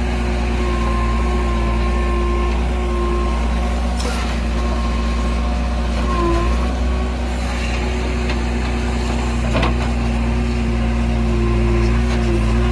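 Heavy diesel engine of earthmoving machinery running steadily under load, with two sharp knocks, about four and nine and a half seconds in, typical of a bucket striking soil or a truck body.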